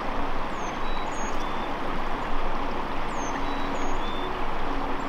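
Steady rushing outdoor noise with a few faint, high, short chirps in two pairs, one pair about half a second in and another about three seconds in.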